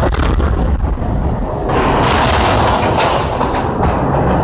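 Loud wind buffeting the microphone: a rough, continuous rumble that eases for about a second near the start, then comes back.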